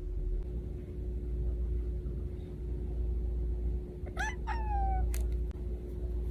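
Cat meowing twice in quick succession about four seconds in, the second meow longer and falling in pitch.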